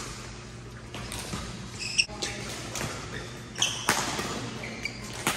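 Badminton rally: a few sharp racket strikes on the shuttlecock, the loudest about two seconds in, with court shoes briefly squeaking on the floor between them.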